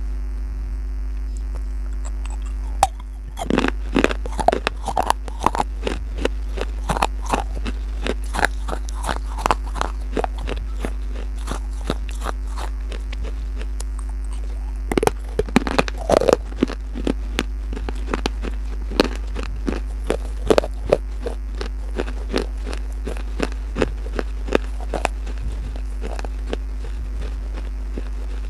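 Close-miked crunching and chewing of baked clay pot pieces: a run of sharp, brittle crunches as pieces are bitten and ground between the teeth, starting about three seconds in and picking up again halfway through, over a steady low hum.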